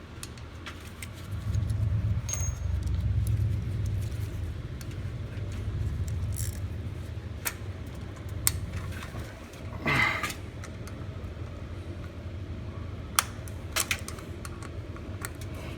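Metal tools clinking and clicking against a lawn mower's carburetor as a tight float-bowl fastener is worked loose, with a low rumble of handling noise for a few seconds near the start.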